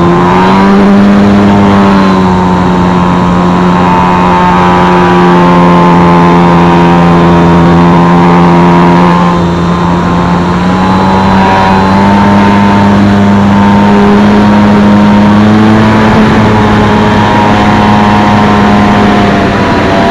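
Electric motor and propeller of a Multiplex FunCub RC plane running in flight, heard close up from a camera on the wing, with a steady buzzing whine over a rush of air. The pitch rises a little near the start, dips briefly about halfway through with a drop in level, then climbs again.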